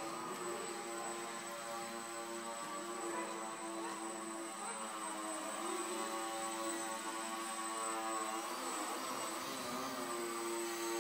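Steady hum of small electric model-aircraft motors and propellers: a depron Yak 54 indoor aerobatic plane on a 7x4 slow-fly prop, with a small RC helicopter also running. The pitch wavers for a couple of seconds near the end.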